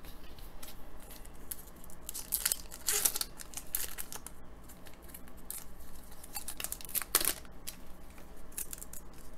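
An Upper Deck hockey card pack wrapper being torn open and crinkled: several short rips and rustles, loudest about three and seven seconds in.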